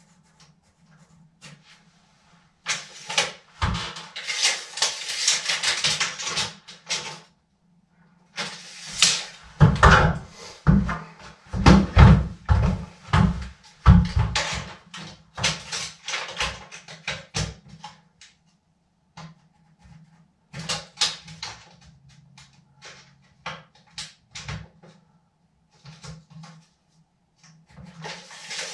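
Handling noise of measuring and marking on a wall from a stepladder: a few seconds of scraping and rustling, then a run of knocks and bumps, with scattered clicks later on.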